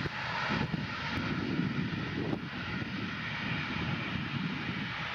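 Aircraft engine noise from a passing airplane: a steady, noisy rumble whose higher hiss eases off about half a second in.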